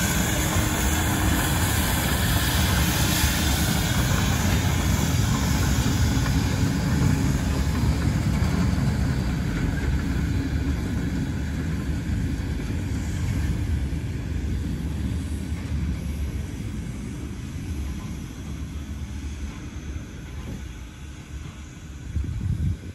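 Danish DSB class Q steam locomotive Q 350 on the move while shunting: a low rumble with steam hiss that gradually fades over the second half as the engine draws away, with a brief louder burst near the end.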